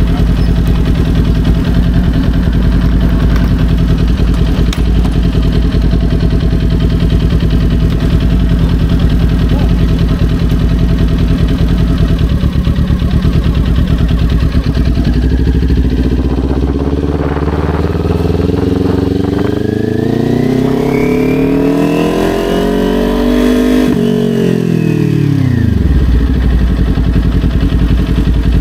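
Kawasaki Ninja 400's parallel-twin engine running steadily at low revs, then revving up in one long rising climb over several seconds in the second half. It drops back quickly near the end and settles to a steady low note again.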